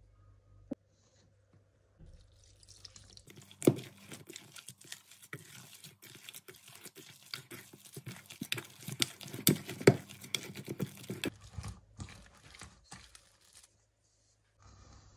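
A hand working soft, wet pizza dough in a stainless steel bowl: irregular sticky squelches, slaps and tearing, starting about three and a half seconds in and dying away about twelve seconds in.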